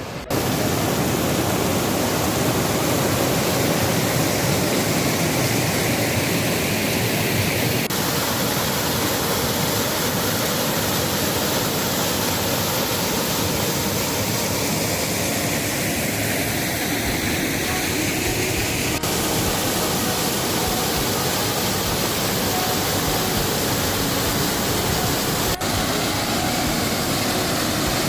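Waterfall rushing steadily, a continuous hiss of falling water; the falls are fed by water let out through the dam gates.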